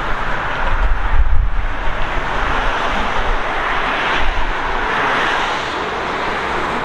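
Wind buffeting the microphone, heaviest about a second in, over a steady hiss of street traffic.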